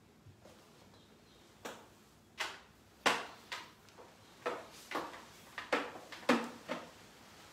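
A run of about ten sharp knocks and thumps, irregularly spaced, the loudest about three seconds in and about six seconds in: a person setting a book down on a cloth-covered table, pushing back a chair, standing up and stepping away.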